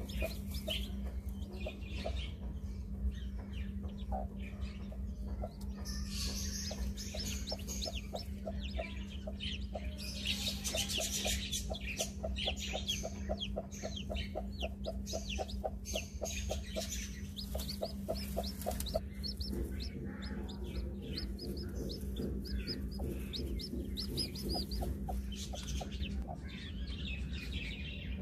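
Brooding hen clucking in a fast, low, continuous series while her newly hatched chicks peep in short high chirps, over a steady low hum.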